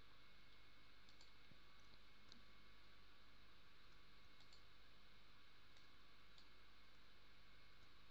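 Faint computer mouse clicks, several scattered short clicks over a quiet steady hiss.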